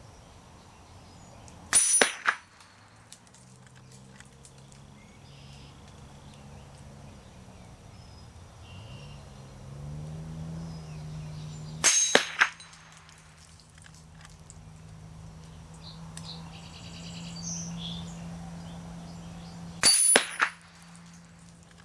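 Three shots from a Henry lever-action .22 LR rifle, about ten and then eight seconds apart. Each is followed a fraction of a second later by a second sharp sound. A low steady hum comes in about halfway through.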